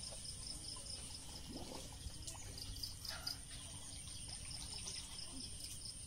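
Faint outdoor ambience of insects chirping in a steady high pulsing rhythm of about five pulses a second, over a low rumble of wind on the microphone.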